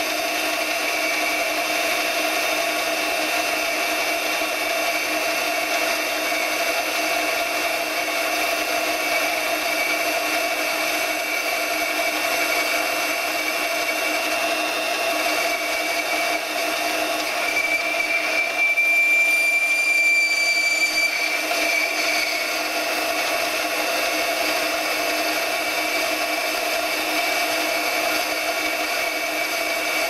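Benchtop metal lathe running steadily, its chuck spinning while a boring bar takes a light cut inside a metal adapter. About two-thirds of the way through, a high-pitched squeal comes from the cut for about two seconds.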